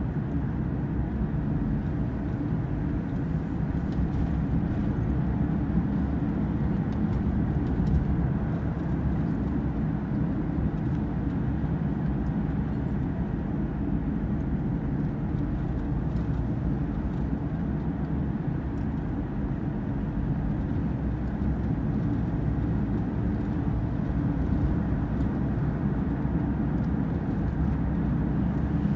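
Steady road and engine noise heard inside a car's cabin as it drives along at speed: a low, even rumble.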